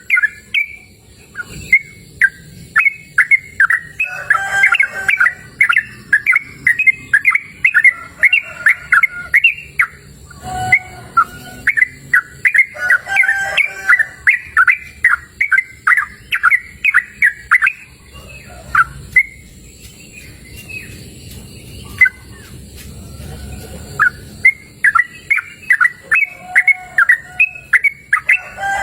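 Yellow-vented bulbul (trucukan) singing: rapid runs of short notes, broken by a pause of a few seconds about two-thirds of the way through, then starting again.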